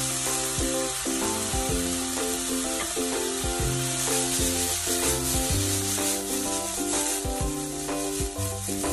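Bean sprouts, green pepper and pork sizzling in a hot frying pan as they are stirred and tossed, with background music of held notes underneath.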